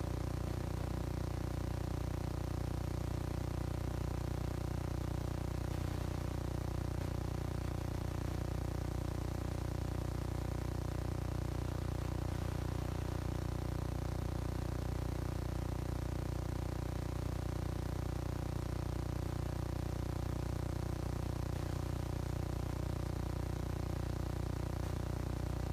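A steady, unchanging drone of several held low tones over a faint hiss.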